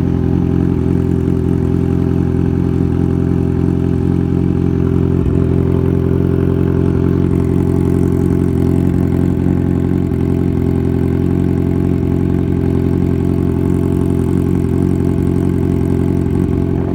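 Kawasaki Z1000's inline-four engine idling steadily through an aftermarket Y-pipe exhaust, very loud.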